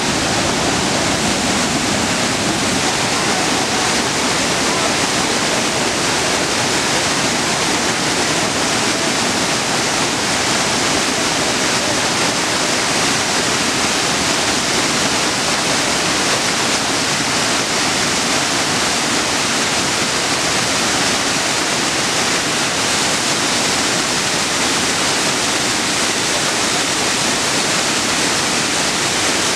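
Small waterfall cascading over rocks: white water rushing and splashing, a steady, loud, unbroken noise.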